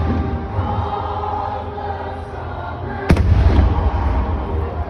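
Fireworks over patriotic show music played through a stadium's loudspeakers: a steady low rumble of bursts, with one sharp bang about three seconds in.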